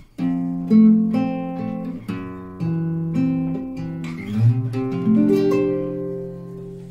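Nylon-string classical guitar played solo, a phrase of plucked chords and single notes, the last notes ringing and fading near the end.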